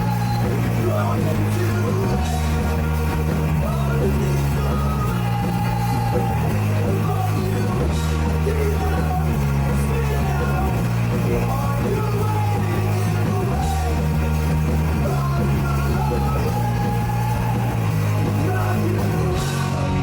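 Live punk rock band playing loud distorted guitars, bass and drums, the heavy low chords changing every couple of seconds.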